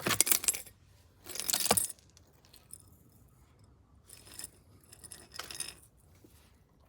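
Short clinking, rattling handling sounds: two louder ones in the first two seconds, then fainter ones about four and five seconds in.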